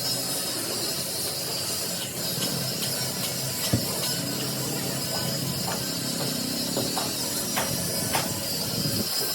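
A steady hiss with scattered light clicks and taps.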